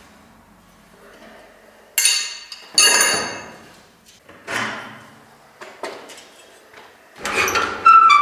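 Steel attachment of a weight bench being worked loose and pulled off its frame, metal on metal: two sharp ringing clanks about two seconds in, a few softer knocks, then another ringing clank near the end.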